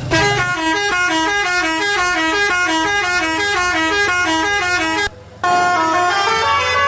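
Odong-odong's multi-tone telolet horn playing a fast, repeating melody of short notes. It breaks off briefly about five seconds in, then starts a new tune.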